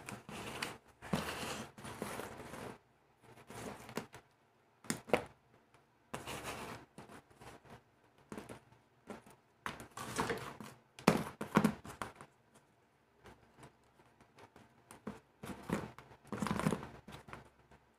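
Irregular rustling, scraping and sharp clicks of hands handling wires and pushing small plug connectors together on a cardboard surface.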